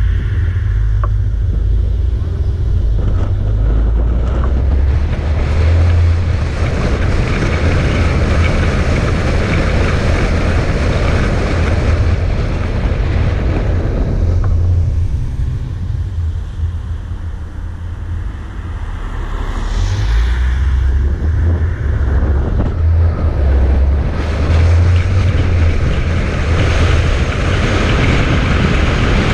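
A motor vehicle driving, its rumble mixed with wind buffeting the microphone. It eases off for a few seconds about halfway through, then builds again.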